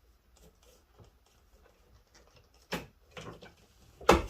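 Quiet handling noises with a single knock about three seconds in, then a loud clatter of several hard impacts near the end as hand tools are tossed down.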